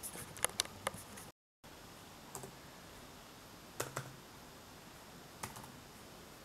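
A quick run of sharp clicks, then the sound drops out for a moment about a second in. After that come a few scattered taps on a laptop keyboard as a PIN is typed at the sign-in screen.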